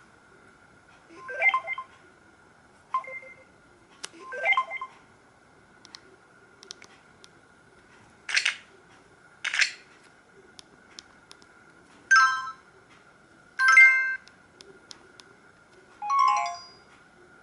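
Samsung SGH-E900 mobile phone playing one of its built-in ringtones: short, sparse chime-like notes and two noisy swishes, a second or two apart, with quiet gaps between them. A faint steady high whine runs underneath.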